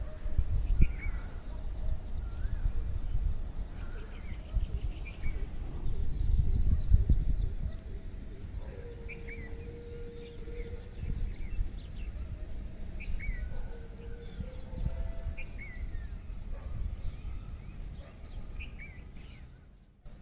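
Birds chirping and calling, short rising-and-falling notes every second or two, over low wind rumble on the microphone that is heavy for the first eight seconds or so and then eases.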